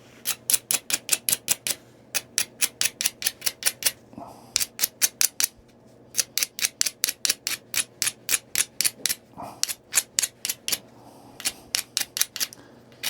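Quick, even scraping strokes of stone on stone, about five a second in runs of one to three seconds with short pauses, as the edge of a knapped Tallahatta point is worked.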